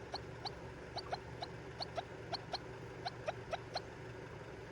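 A rapid run of short, sharp chirps from a small animal, about three a second, stopping shortly before the end.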